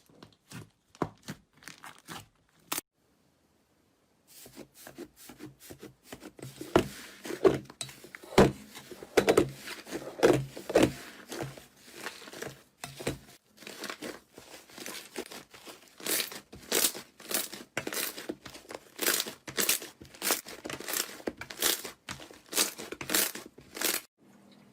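Crisp crunching and crackling of a brittle material being cut or crushed. A few scattered crackles come first, then a short gap, then dense crackling. It turns into a regular run of sharp crunches, about one and a half a second, in the last eight seconds.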